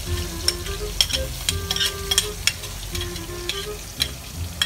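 Metal spatula scraping and clinking against a wok while chopped shallots, garlic, chillies, tomato and petai are stir-fried in hot oil. The oil sizzles steadily under irregular sharp clinks.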